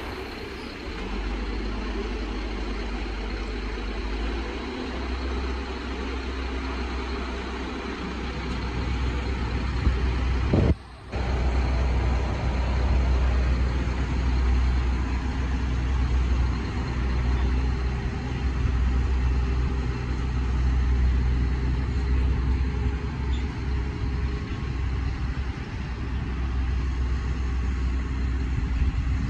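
Diesel engine of a truck-mounted mobile crane running steadily under load as it hoists a truck tractor, a deep rumble with a steady hum over it. The sound breaks off for a moment about eleven seconds in.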